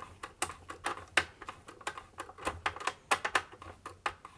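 Screwdriver turning a stubborn T20 Torx screw out of a sewing machine's metal base plate: a run of irregular light clicks and taps.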